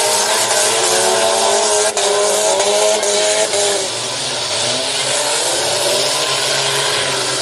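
Several demolition derby cars' engines revving and running at once over a loud, dense wash of noise, with a sharp knock about two seconds in.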